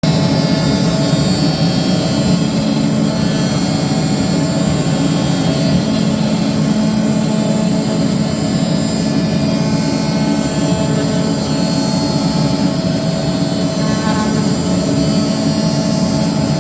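CNC router running with an oscillating knife tool cutting sign material: a steady, loud mechanical drone with a constant hum and whine.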